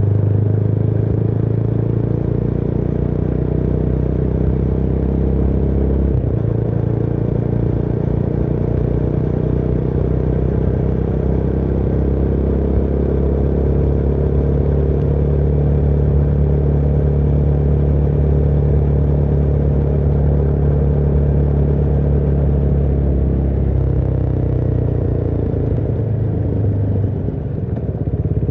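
Motorcycle engine running steadily under way. Its note shifts about six seconds in and again near the end, with a brief dip shortly before the end.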